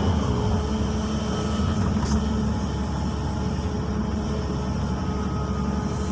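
XCMG XE215C hydraulic excavator's diesel engine running steadily under digging load, heard from inside the cab, with a thin steady whine over the low engine sound.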